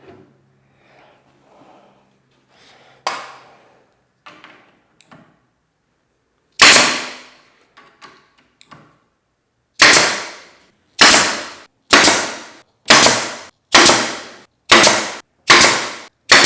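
Nail gun firing into wood trim: one loud shot, a pause, then a steady run of about eight shots roughly one a second, with a fainter knock a few seconds before the first.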